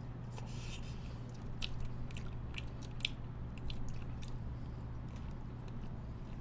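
Mukbang eating sounds: chewing and biting into braised chicken, with a scattering of short, sharp wet clicks and smacks, over a steady low hum.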